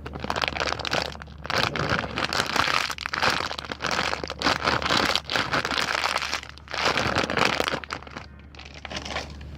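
Plastic candy packaging crinkling and crackling as it is handled, on and off, easing off near the end.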